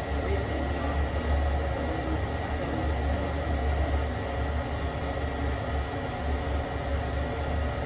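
A.O. Smith gas water heater running after a reset, its burner lit and heating: a steady low hum with an even hiss and a faint steady high whine.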